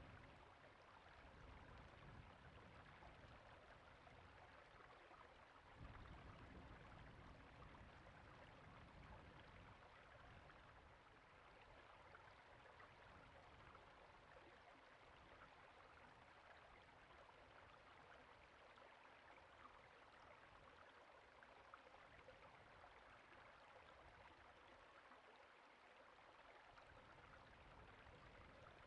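Creek water flowing steadily over rocks, heard faintly.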